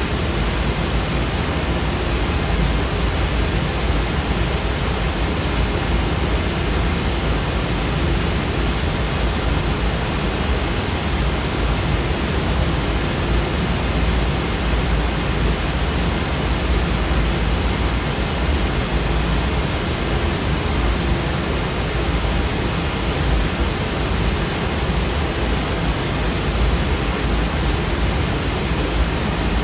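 Steady white noise sound effect: an even, unchanging hiss with more weight in the bass.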